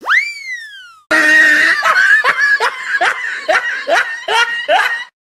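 A short comic sound effect, a tone that swoops up and slides slowly back down, then a laughing sound effect: a loud run of repeated laughs, about three a second, for some four seconds.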